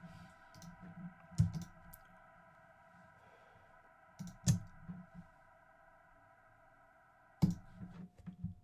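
Computer keyboard and mouse clicks, a few sharp ones with soft thumps, over a steady held synth pad drone of several tones that cuts off near the end.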